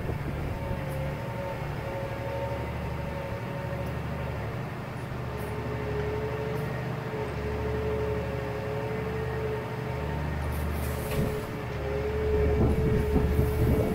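A vehicle's engine running steadily as it moves, a low rumble under a thin steady whine that steps down in pitch about five seconds in; it grows a little louder near the end.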